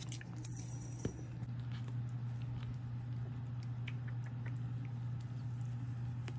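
Cats licking a squeeze-tube treat and eating wet food from a stainless steel bowl: scattered small licking and chewing clicks, with one sharper tap about a second in, over a steady low hum.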